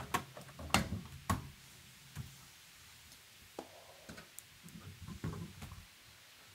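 A few sharp clicks and knocks, the three loudest about half a second apart in the first second and a half, then fainter, irregular ticks and taps.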